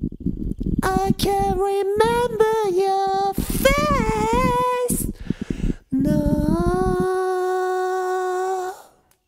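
Wordless singing in an ambient track: one voice sliding and bending between notes over a low, dense backing. It ends on a long held note that fades out near the end.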